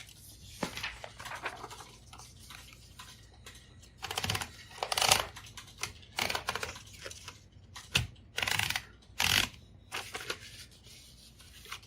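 Clicks, rattles and brief scraping from a Royal Quiet DeLuxe portable typewriter being adjusted by hand, its paper guide and carriage moved into position, with a sharp click about eight seconds in.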